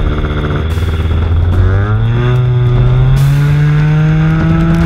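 Evolution .46 (7.5 cc) nitro glow engine of a model trainer airplane, heard close up from under the fuselage, opening up from a low steady run. Its pitch rises steadily from about a second in as the throttle is advanced for the takeoff roll.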